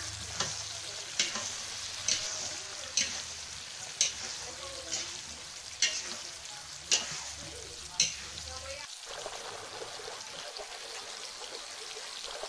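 Shrimp frying and sizzling in a wok while a spatula stirs them, knocking and scraping against the pan about once a second. After about nine seconds the knocks stop and only the steady sizzle goes on.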